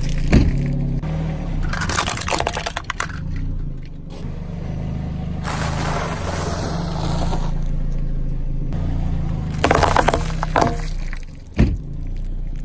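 A car tyre rolling over and crushing objects: bursts of cracking and crunching, clustered about two seconds in, near ten seconds and once more just after, over background music with a steady low bass line.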